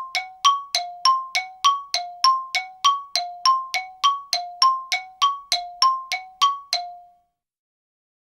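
A two-note chime rings over and over, alternating high and low notes at about three strikes a second, and stops about seven seconds in.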